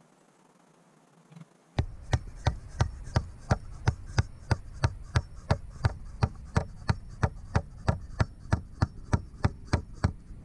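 Steady hammering, about three sharp blows a second, starting about two seconds in over a low rumble.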